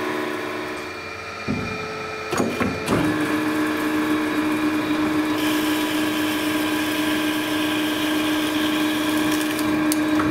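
Behringer HBP360A automatic bandsaw running with a steady mechanical hum. A few knocks come in the first three seconds, then a steadier, stronger drone sets in and holds.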